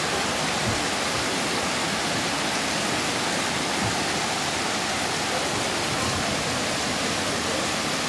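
Steady, even rush of heavy rain and flowing floodwater.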